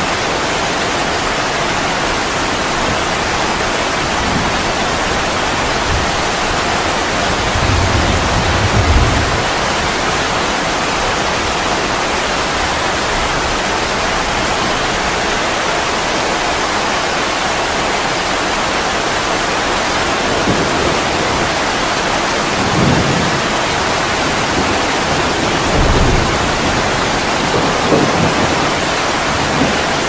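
Heavy rain with runoff water pouring off a roof: a steady, dense hiss of falling and splashing water. A few brief low rumbles rise out of it, about eight seconds in and several times near the end.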